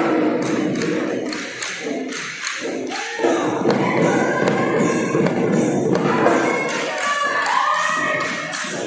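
Dhol drums beating a Bihu dance rhythm, with a group of voices singing over the drumming.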